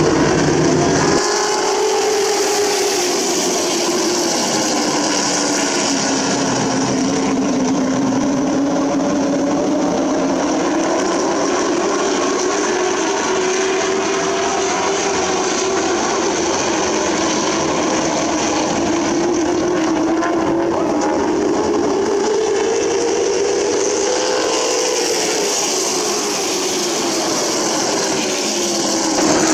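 Engines of a pack of short-track stock cars racing around an oval, a continuous loud drone whose pitch slowly rises and falls as the cars lap.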